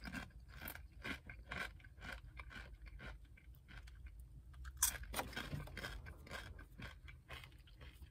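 A person chewing and crunching chips: a run of faint, irregular crisp crunches, with a louder cluster about five seconds in.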